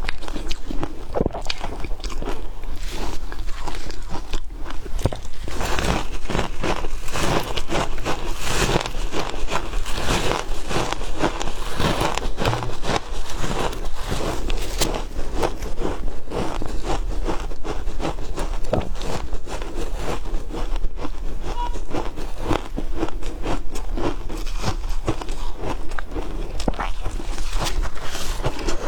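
Close-up crunching and chewing of shaved ice, a steady run of irregular crackling bites.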